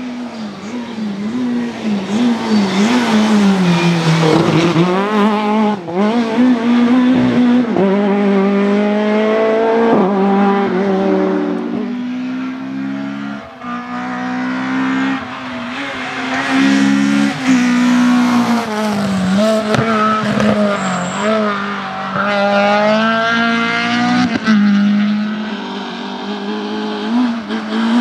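Rally cars at full throttle: engines revving up through the gears, the pitch climbing and then dropping at each shift or lift, as one car after another passes.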